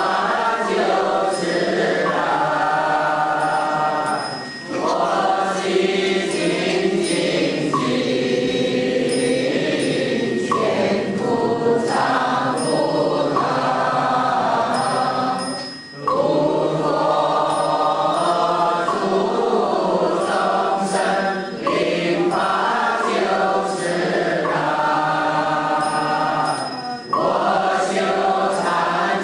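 Buddhist devotional chant sung by a group of voices in long, held phrases, with short breaks between phrases.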